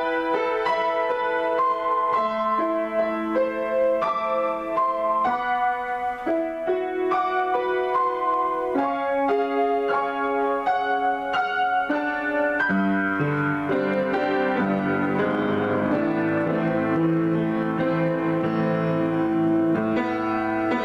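Grand piano improvisation: chords struck in the middle register, changing every second or so, then about halfway through deeper bass notes come in and the sound thickens into a fuller, sustained wash of notes.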